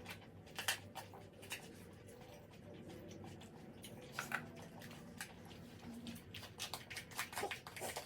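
Close-up mukbang eating sounds from braised pork kimchi stew: soft wet chewing with a few short, sharp clicks scattered through, more of them near the end.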